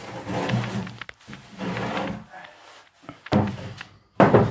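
Music playing in stretches that start and stop, loudest near the end.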